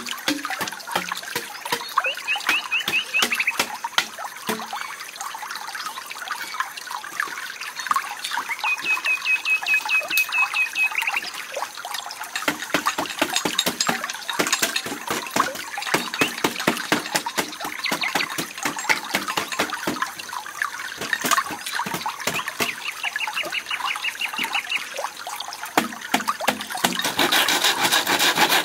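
Irregular knocks and taps of hand tools working bamboo slats, broken three times by a short rapid high-pitched trill. Near the end a hand saw starts cutting across the bamboo in quick rasping strokes.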